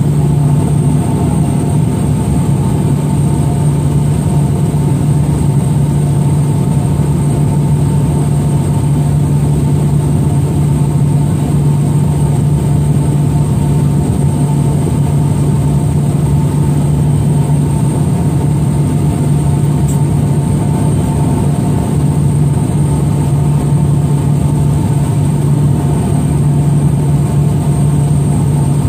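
Steady, unbroken drone of a small propeller aircraft's engine heard from inside the cabin, with a strong low hum and a thin high whine held at a constant pitch.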